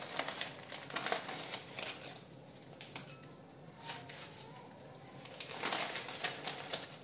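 Crinkling of a clear plastic bag of dried basil as hands handle it and rummage inside, in two bouts: during the first two seconds and again near the end, quieter in between.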